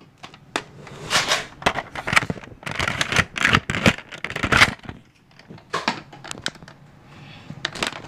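Handling noise from a phone moving against a plastic Nerf blaster: a dense run of scrapes and clicks for the first five seconds or so, then a few sparse clicks.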